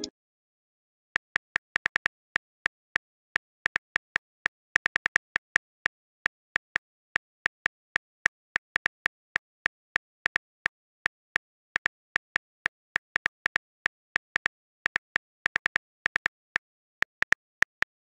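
iPhone on-screen keyboard key clicks as a text message is typed: a quick, irregular run of short ticks, several a second, starting about a second in.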